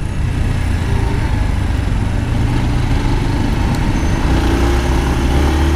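Motorcycle riding in city traffic: its engine running steadily under constant wind and road noise, the engine note rising slightly in the last couple of seconds as it gathers speed.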